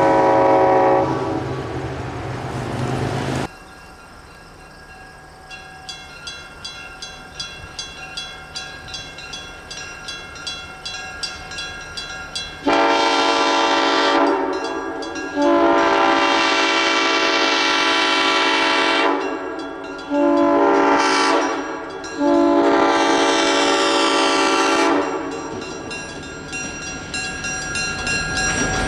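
A diesel locomotive horn chord fades out, and after a cut a grade-crossing bell dings steadily. Then the horn of an EMD GP7 locomotive blows the long, long, short, long grade-crossing signal as it approaches, and the locomotive's running grows louder near the end.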